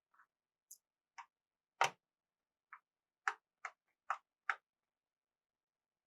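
Screwdriver working the bottom-case screws out of an HP 255 G7 laptop: a string of about nine small, irregular clicks and ticks, the loudest about two seconds in.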